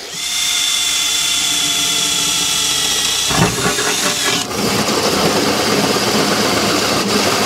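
Cordless drills cutting through the steel sheet of a van's front wing: first a steady high whine, then, about four and a half seconds in, a rougher, harsher grinding as a hole saw cuts the large opening.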